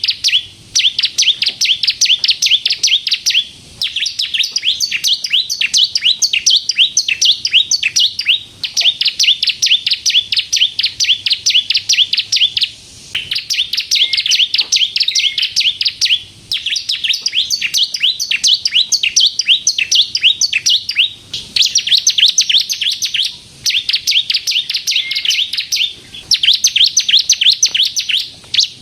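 Bar-winged prinia (ciblek kristal) singing steadily, in fast high-pitched trills of rapidly repeated notes. Each run lasts about two to three seconds, with brief pauses between runs.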